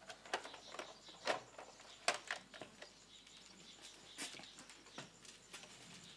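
Newspaper being handled and unfolded, making irregular sharp paper crackles and rustles; the loudest come a little over a second in and about two seconds in.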